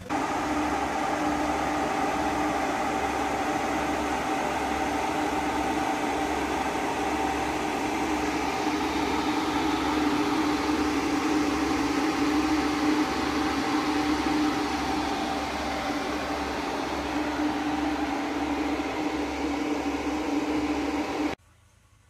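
Cooling fans and water pump of a home-built Peltier car air-conditioning unit running, a steady whirring hum with a couple of constant tones. It stops suddenly near the end.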